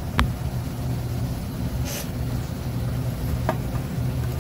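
Olympus BHTU microscope stand and electrical base handled on a workbench: a sharp click just after the start, a brief scrape about two seconds in, and a lighter click near three and a half seconds, over a steady low hum.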